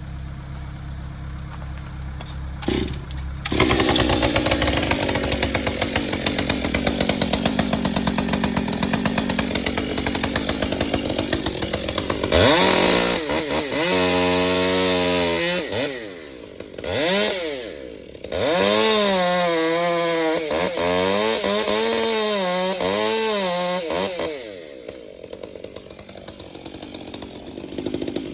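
A gas chainsaw starts at full throttle about three and a half seconds in, cutting for several seconds. It is then revved up and down in repeated bursts, its pitch rising and falling, with a couple of short breaks. It drops off near the end. Before the saw starts, a low engine hums steadily.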